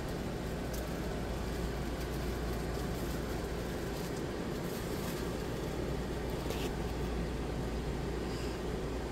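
Steady low hum and hiss of room background noise, with a few faint rustles of the diamond painting canvas being handled on the light pad.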